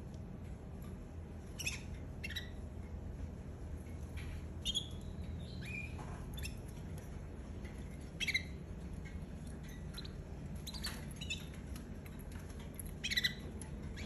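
Caged canaries giving short, scattered chirps and call notes, one every second or two rather than a continuous song, over a steady low hum.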